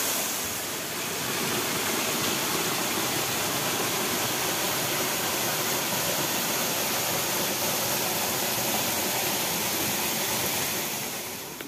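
A small waterfall pouring over rocks into a pool: a steady rush of falling water.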